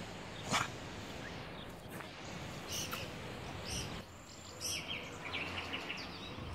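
Outdoor ambience: a steady background hiss with a few short bird chirps, clustered near the end, and one sharp click about half a second in.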